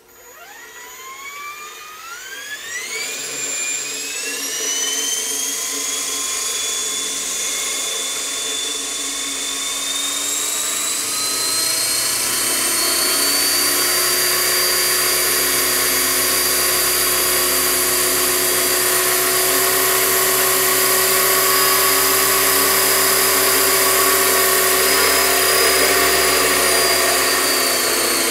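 A Hausler 450-size electric RC helicopter spooling up. Its motor and rotor whine rises in pitch over the first few seconds, climbs again about ten seconds in, then holds steady, with a low rotor hum joining about eleven seconds in.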